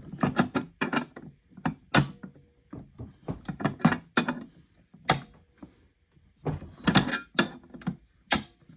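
Vise-Grip locking pliers clamping down and snapping open at several spots on bolted mounting hardware, pinching it tight. The result is an uneven run of sharp clicks and clunks, the loudest about two, five and eight seconds in.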